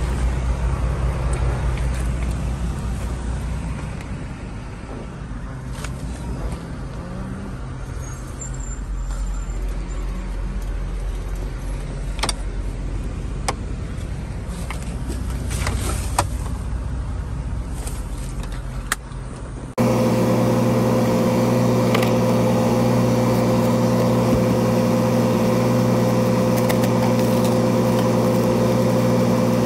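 Engine idling: a low, steady rumble with scattered sharp clicks. About two-thirds through, the sound cuts abruptly to a louder, even hum with several steady tones.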